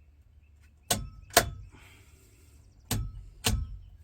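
A wall switch being flicked back and forth: four sharp clicks, each with a little thump, in two pairs about half a second apart, turning the newly wired light off and on.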